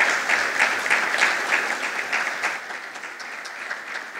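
Audience applauding in a large hall, many hands clapping together, loudest at first and gradually dying away near the end.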